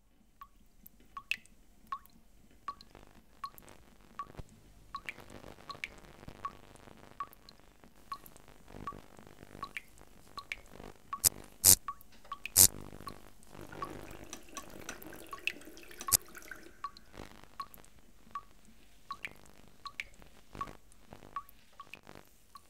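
Water dripping steadily from a tap into a sink, one drip about every three-quarters of a second. Two sharp, louder knocks land close together about halfway through, over a faint steady drone.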